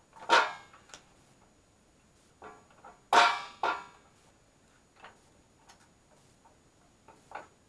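Metal bracket and stainless steel handwheel of a homemade fruit press being lined up and seated on its wooden frame: a scatter of metal clinks and knocks, the loudest about three seconds in.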